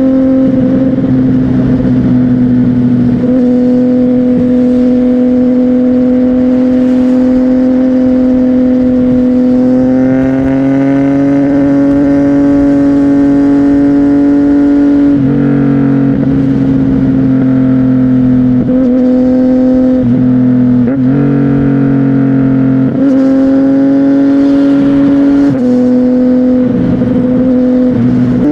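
CFMOTO 675NK three-cylinder engine running through a Burnout titanium exhaust at a fairly steady pitch. The pitch rises a little about a third of the way in, then dips briefly and recovers several times through the second half.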